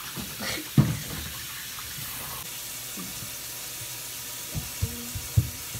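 Knocks of kitchenware on a stone countertop over a steady rushing hiss: one sharp, loud knock about a second in, then three or four lighter knocks near the end.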